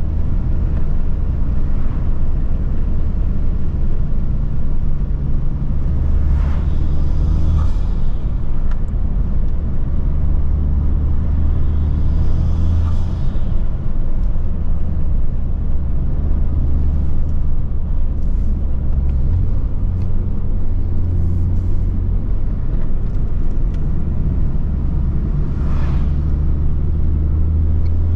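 Honda Civic Type R driven hard on a winding road: a steady low engine and intake drone that steps in pitch several times, with brief hissing whooshes from the induction now and then.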